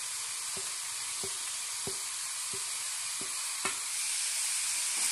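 Ponnanganni keerai (dwarf copperleaf greens) sizzling steadily in an open steel pan while grated coconut and cumin are spooned over them. Light clicks of the steel spoon come about every two-thirds of a second, and the sizzle grows a little louder near the end.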